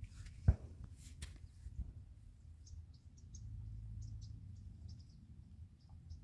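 Quiet outdoor ambience with faint, short, high chirps repeating irregularly over a low rumble. There is a single sharp thump about half a second in and a couple of light clicks just after.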